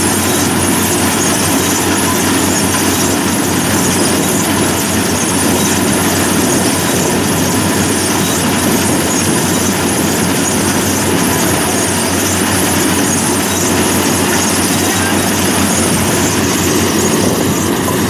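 Yanmar AW70V rice combine harvester's diesel engine and machinery running steadily and loudly.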